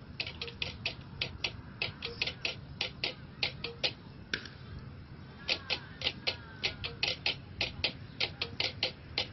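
Rhythmic percussion accompanying a dance: a brisk, even run of sharp clicks, about four or five a second, breaking off for about a second midway and then resuming.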